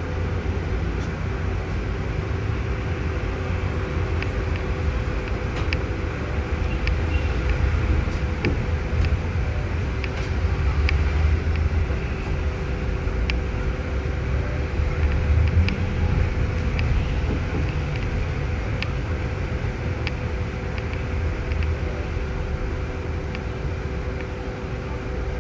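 Inside a moving city bus: steady engine and road rumble with a constant faint hum, and scattered light ticks and rattles.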